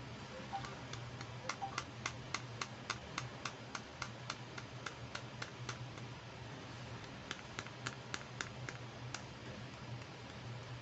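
Light, sharp clicks, about four a second, in one long run and then a shorter one near the end, like small plastic toy pieces being clicked or tapped. A steady low hum lies underneath.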